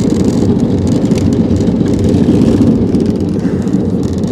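Jet boat's engine running steadily while the boat is under way, a constant low drone.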